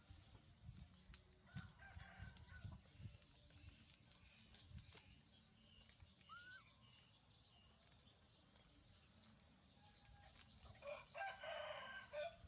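A rooster crowing once near the end, faint. Earlier, a few short, rising chirps.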